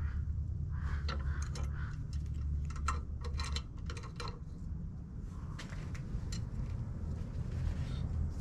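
Metal clicks and clinks of an adjustable wrench and a threaded hose-end fitting being worked at a bench vise, mostly in the first half, over a steady low hum.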